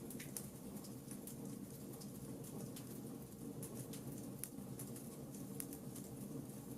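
Wood fire burning in a fireplace, crackling with irregular sharp pops and snaps over a steady low rush of flame.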